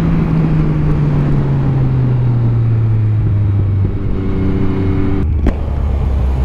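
Yamaha MT-09's three-cylinder engine heard from the rider's seat, its revs falling steadily over about four seconds and then holding at a lower, steady note. There is a short click near the end.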